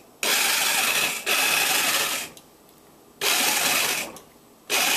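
Electric sabre saw running in short bursts of about a second, switched on and off four times, its blade cutting down through a butternut squash.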